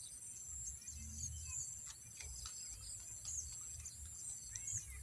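Outdoor ambience: a steady, high-pitched drone of insects such as crickets, with several short bird chirps scattered through and a longer bird call near the end. An uneven low rumble runs underneath.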